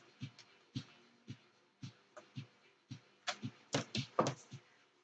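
Knocks and clicks of a Marlin 60 .22 rifle and a screwdriver being handled on a workbench, with a few louder sharp knocks near the end. Under them runs a steady soft thump about twice a second.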